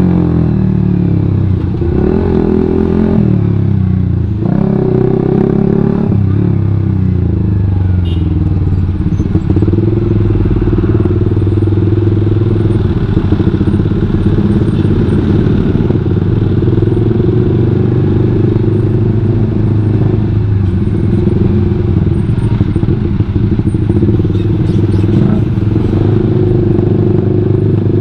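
Suzuki GSX-R150's single-cylinder engine running through a WRX GP5K1 aftermarket full-system exhaust as the bike slows. The engine note drops in pitch twice in the first few seconds, then runs steadily at low revs while the bike crawls in traffic.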